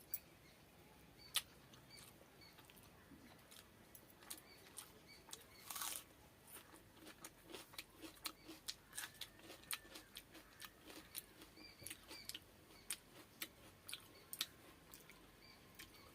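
Close-up eating sounds: chewing with wet mouth smacks and small crunches of fried fish with water-soaked rice, a run of short sharp clicks that comes faster after a few seconds, with a brief rustle about six seconds in.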